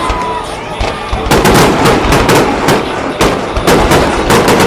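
Fireworks show: a rapid string of aerial shell bursts, several loud bangs a second, with crackling between them and a short whistle near the start.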